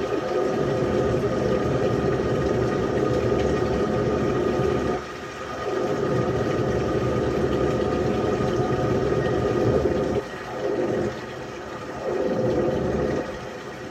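LG washing machine running with water rushing and a steady hum. The sound drops off briefly about five seconds in and several times near the end.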